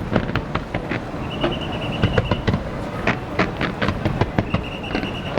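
Fireworks display: a rapid, irregular run of sharp bangs and crackles over a low rumble, with a high steady whistling tone about a second in and again near the end.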